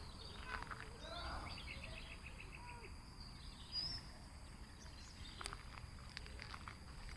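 Rural outdoor ambience: small birds chirping, with a quick run of evenly repeated notes about a second in, over a faint steady insect drone and a low rumble of wind noise.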